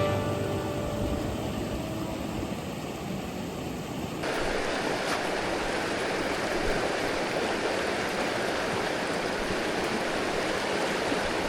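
A shallow mountain river running over rocks, a steady rush of water. About four seconds in it cuts to a louder, brighter rush.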